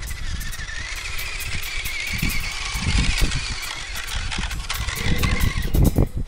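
Radio-controlled trail truck driving over rough grass, its motor giving a steady high whine that rises in pitch about a second in and cuts off shortly before the end, over low, gusty rumbling.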